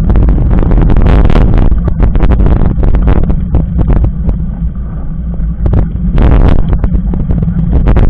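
Wind buffeting the microphone of a camera mounted on a moving mountain bike, with rattling and crunching as the tyres roll over loose gravel. It eases for a couple of seconds in the middle, then comes back loud.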